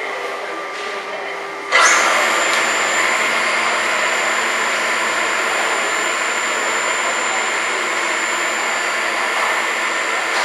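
Steam locomotive blowing off steam: a loud steady hiss that starts suddenly about two seconds in, with a thin high whistling note running through it.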